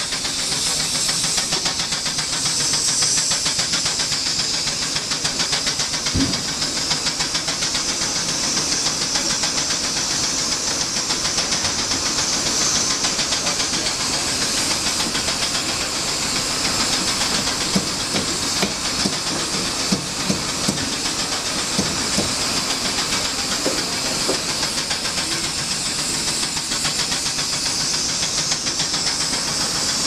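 Steam sawmill engines and boiler running: a steady hiss of steam over the rapid, even beat of the engines. There is a single thump about six seconds in and a few sharp knocks in the second half.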